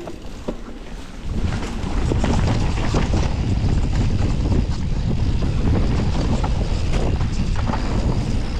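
Wind buffeting the microphone of a mountain biker's camera during a downhill run, with tyres rumbling and the bike rattling over the trail. It swells from about a second in and then stays loud and steady.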